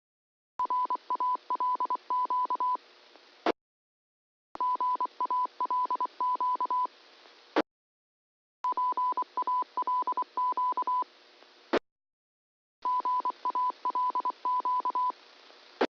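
Amateur radio repeaters sending their Morse code identification, heard through a radio receiver. Four transmissions, each a quick run of on-off beeps on a single tone over radio hiss, and each cut off by a sharp squelch click.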